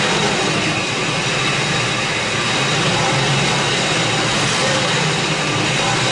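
2004 Ford F-150's engine running steadily with the throttle held slightly open, a loud even drone with no change in speed.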